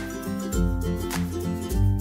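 Background instrumental music with a steady beat and a moving bass line.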